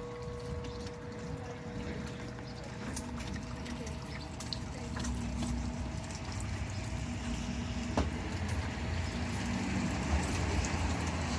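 The ring of the cuckoo clock's struck bell fading slowly away over a steady outdoor hiss, with a low rumble of road traffic growing near the end.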